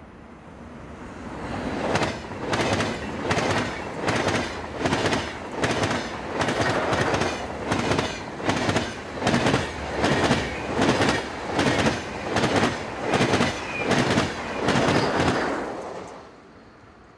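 SBB IC 2000 double-deck train hauled by two Re 460 locomotives passing at speed. The wheel-on-rail noise rises over the first couple of seconds, then runs loud with a regular clickety-clack, about three clacks every two seconds, as the bogies of the long coach rake go by. It drops away sharply near the end as the last coach passes.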